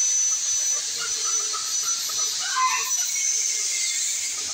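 A steady high hiss with a thin, constant high whine running through it. A brief faint sound comes about two and a half seconds in.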